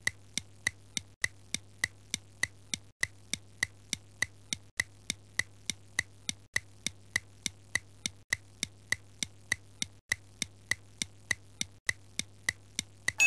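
A clock-ticking sound effect counting down a quiz: sharp, even ticks, a little under two a second, over a faint steady low hum.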